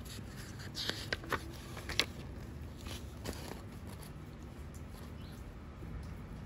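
A few soft paper rustles and light clicks in the first half, as a page of a picture book is turned, over a low steady room hum.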